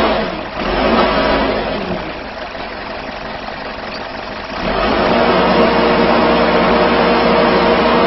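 Backhoe's diesel engine running steadily. It drops off for a couple of seconds, then revs back up a little past halfway through and holds there.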